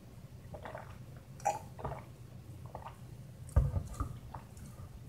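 A few gulps of iced coffee drunk from a bottle, then the bottle set down on a table with a thump about three and a half seconds in.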